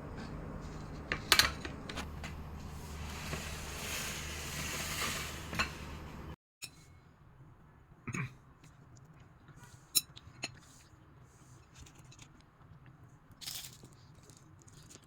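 Scattered light clinks and knocks of tableware, dishes and cutlery, over a low hum. The sound cuts out briefly about six seconds in, and after that there are only a few sparse clicks.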